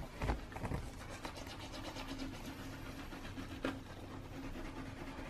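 Manual toothbrush scrubbing teeth: quick, even, scratchy brushing strokes, with two dull bumps near the start and a short knock a little past halfway.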